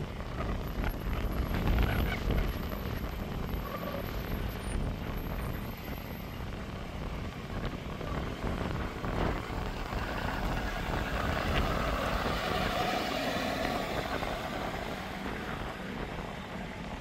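Fire apparatus engines running as brush trucks move slowly along a burn line, over a steady low rumble that grows a little louder past the middle.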